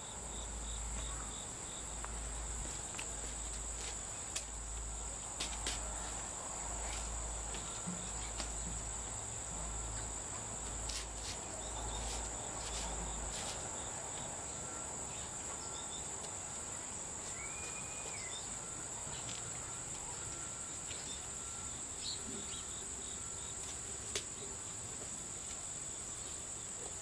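Crickets chirring in a steady high drone. For the first half, deep low thumps come about every second and a half as the pickup's front end is pushed down and rebounds on new Bilstein shocks, firm and well damped.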